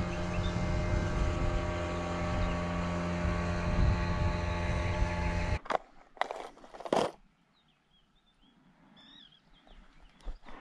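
A motorboat engine runs steadily as the boat passes close by, then stops abruptly about halfway through. A few sharp knocks follow, then near quiet with faint chirps.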